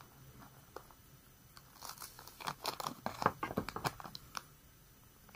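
Clear plastic toothbrush packaging crinkling and crackling as hands handle it, a quick cluster of crackles and clicks in the middle that dies away after about four seconds.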